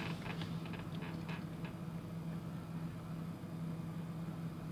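Light clicks and scrapes of a digital caliper's jaws being slid and set against a small model car, in the first second and a half or so, over a steady low hum.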